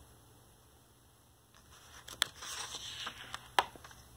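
A page of a picture book being turned by hand: a papery rustle with a couple of sharp clicks, starting about a second and a half in.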